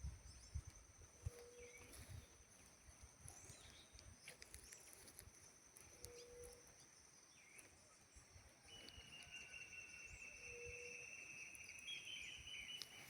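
Faint rural outdoor ambience: a steady high drone of insects, a short low call repeated three times about four and a half seconds apart, and from about two-thirds in a long steady high buzz that runs on to the end.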